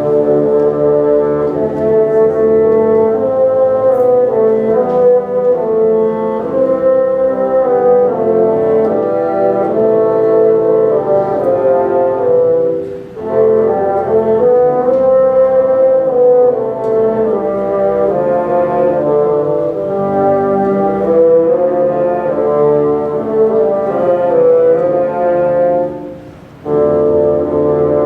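Bassoon ensemble playing live, several bassoons sounding sustained chords together, with two short breaks between phrases, about halfway through and near the end.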